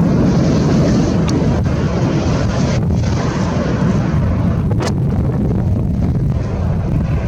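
Boeing 777 jet engines rumbling loud and steady, with wind buffeting the microphone.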